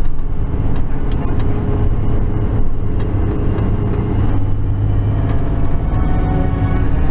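Heavy truck's engine running under way, heard from inside the cab as a steady low rumble.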